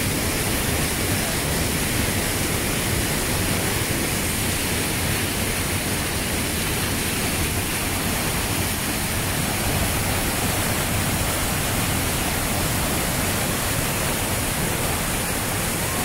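Large waterfall in heavy rainy-season flow, its falling water making a steady, even rush close by.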